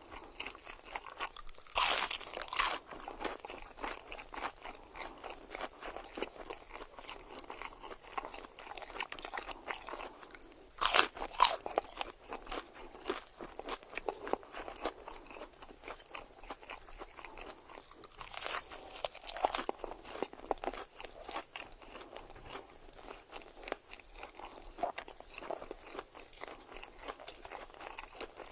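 Close-miked eating of crunchy food: a steady crackle of chewing, with three louder crunching bites spread through.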